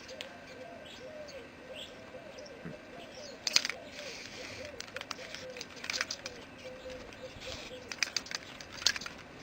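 Birds calling outdoors: a low call repeated about three times a second throughout, with a few higher chirps. Several clusters of short clicks come about a third of the way in, in the middle and near the end.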